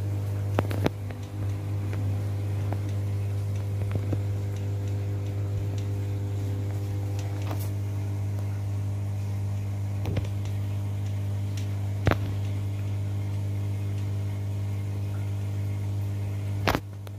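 Steady low hum of running aquarium equipment, a deep tone with a stack of overtones that holds level throughout. A few short light clicks are heard now and then.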